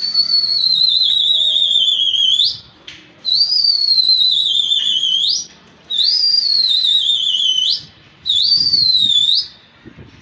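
Loud whistling used in pigeon flying: four long warbling whistles, each about two seconds, sliding slowly down in pitch and then flicking sharply up before breaking off.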